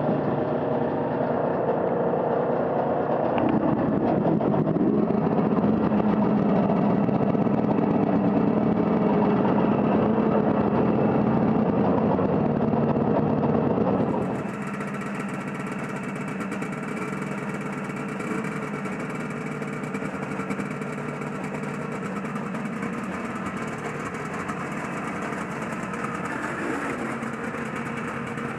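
Vintage two-stroke snowmobile engines, a John Deere 300 and a Yamaha BR 250, running steadily at low speed and idle. About halfway through the sound drops in level and turns thinner, a quieter idle.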